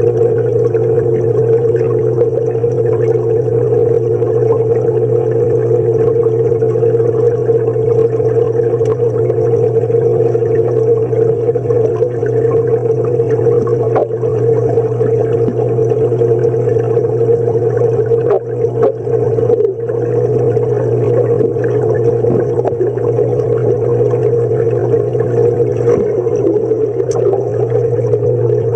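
Underwater ambience in a swimming pool: a steady low hum with a higher drone above it, with a few faint ticks.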